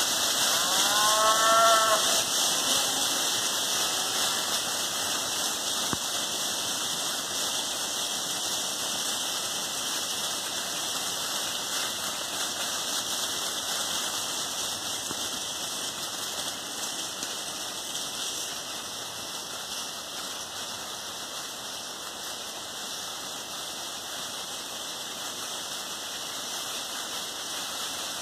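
A herd of Highland cattle walking through a thick layer of dry fallen leaves, a steady crackling rustle of many hooves that slowly fades. One of the cattle gives a single short moo, rising and falling, in the first two seconds.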